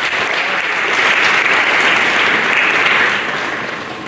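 Audience applauding after a speech, the clapping building to a peak and tapering off near the end.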